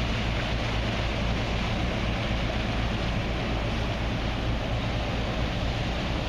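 Boat engine running steadily under way, a low drone with the rush of water and wind noise over it.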